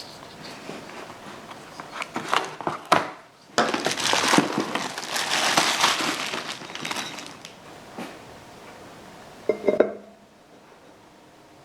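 Workshop handling sounds: scattered clicks and knocks, then a few seconds of crinkling rustle, then a quick cluster of metallic knocks that ring briefly.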